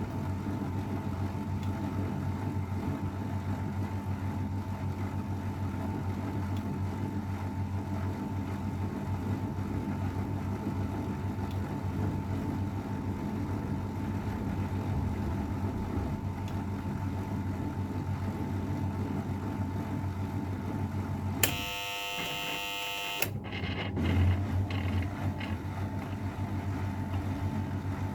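Old AEG Öko-Lavamat 693 front-loading washing machine spinning at a steady speed, its motor giving a continuous hum with a steady whine. About three-quarters of the way through, the hum breaks off for under two seconds while a buzzing tone sounds, then the running hum returns.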